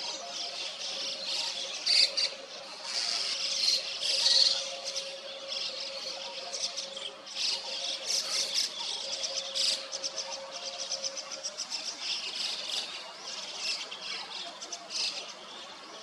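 A flock of white-cheeked starlings calling together: a noisy, continuous, overlapping chatter of short scratchy high notes, with louder flurries now and then.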